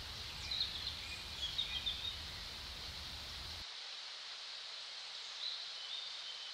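Woodland ambience: a steady outdoor hiss with short, high bird chirps, several in the first two seconds and a few more near the end. A low background rumble drops away abruptly about three and a half seconds in.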